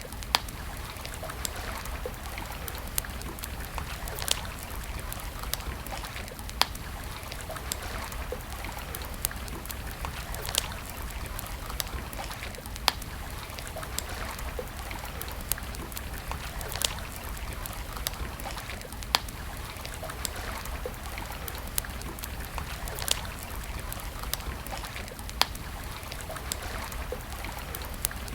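Wood campfire crackling, with sharp pops and snaps at irregular intervals, the loudest every second or two, over a steady rushing hiss of a flowing stream.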